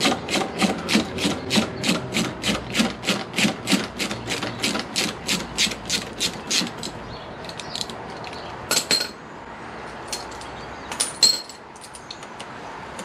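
Spanner working the exhaust can's clamp bolt loose in quick, even rasping strokes, about four a second, for some seven seconds. Then two sharp metal clinks, about nine and eleven seconds in.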